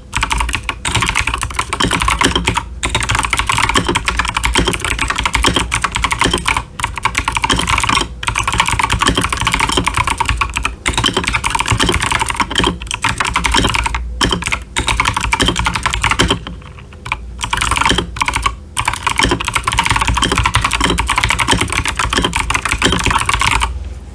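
Continuous typing on a stock Akko 5075s mechanical keyboard with TKC Blackberry clicky switches and doubleshot PBT ASA-profile keycaps: a dense, fast stream of sharp clicks. There are a few short pauses about two-thirds of the way in.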